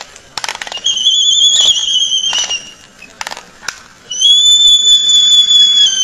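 Two long, high whistled notes of about two seconds each. The first wavers slightly and falls away at its end; the second is held steady. Sharp clicks come before and between them.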